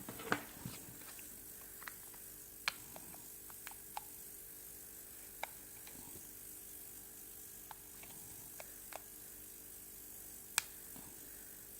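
Scattered light clicks and taps from handling a phone and small prying tools while working at its glued back cover, over a faint steady hum. One click is sharper about a second in, another near the end.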